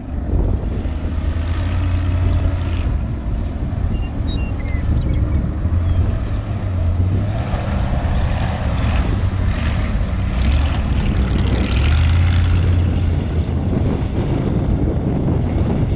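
Off-road race vehicle's engine running at speed: a loud, steady drone.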